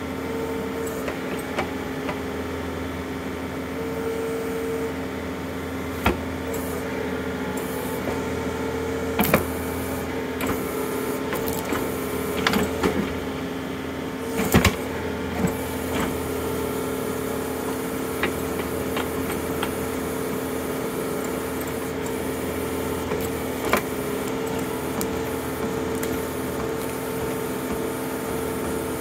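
John Deere compact tractor's diesel engine running steadily under hydraulic load while its backhoe digs out a tree stump, with a handful of sharp cracks and knocks as the bucket tears at the roots.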